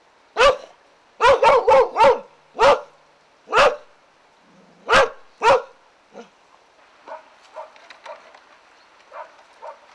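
A dog barking: about nine loud, sharp barks in the first six seconds, four of them in a quick run, followed by a few much fainter barks.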